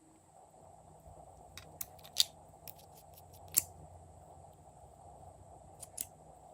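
Glossy slime being mixed by hand, giving a few sharp clicking pops. The loudest pops come about two seconds in and again about three and a half seconds in.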